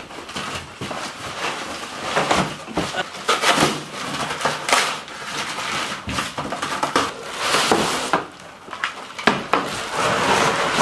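Long cardboard box being torn open by hand: irregular ripping, scraping and knocking of cardboard, then plastic wrap crinkling near the end as the contents are pulled out.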